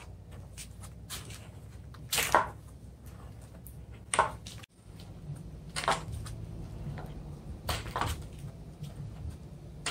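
Slow footsteps on a concrete floor, one foot in a sandal and the other in a 3D-printed armour foot with a metal-and-plastic leg piston: a short scuff or knock about every one and a half to two seconds over a low steady hum.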